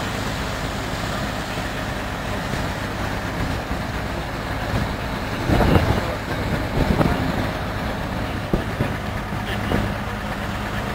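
Vintage belt-driven threshing machine working, powered by a tractor engine running at a steady speed, with a continuous mechanical hum. Louder rough surges come about six and seven seconds in.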